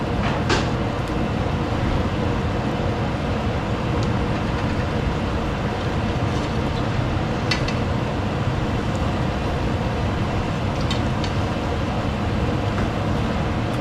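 Hush puppies frying in a skillet of hot oil: a steady sizzle, with a few light clicks of a wire skimmer against the pan.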